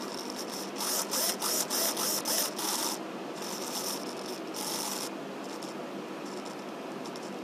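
Align DS410M digital servo's motor and gear train whirring in short bursts as its output arm swings back and forth, busiest in the first five seconds with a few brief bursts near the end. The servo has just had oil cleaned off its potentiometer, and the owner thinks this has cured its jitter.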